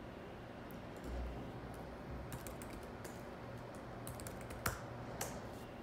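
Keys tapped on a computer keyboard: irregular sharp clicks starting about two seconds in and coming thicker toward the end, after a soft low thump about a second in.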